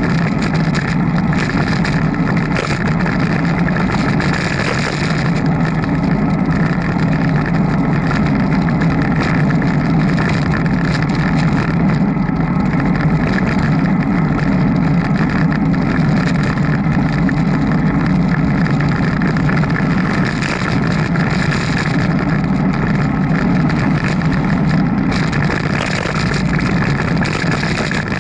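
Steady, unbroken noise of a bicycle ride picked up by a Sony HDR-AS100 action camera, loudest in a low hum.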